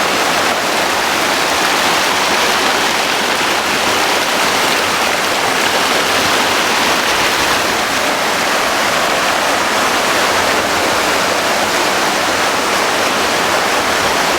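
River in flood rushing past, a loud steady roar of fast, muddy water.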